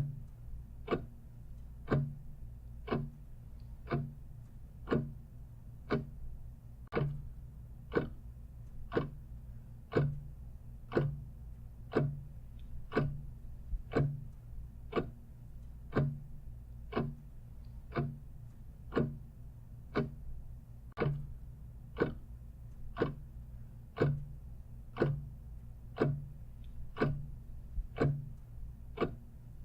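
Clock ticking steadily at about one tick a second, over a faint low hum.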